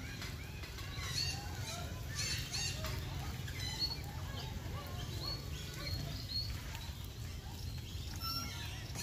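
Scattered short bird calls and chirps, several overlapping, over a steady low rumble.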